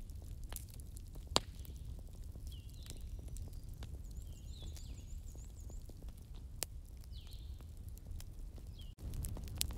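Daytime forest-and-bonfire ambience: a wood fire crackling with scattered sharp pops and small birds chirping, over a steady low rumble. About a second before the end the sound drops out briefly, then comes back slightly louder.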